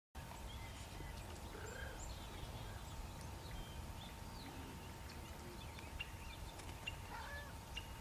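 Scattered short bird chirps and call notes, a few with a curving pitch, over a steady low outdoor rumble and a faint steady tone.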